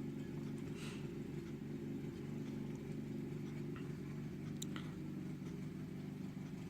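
Steady low hum running throughout, with a few faint clicks about a second in and again past the middle.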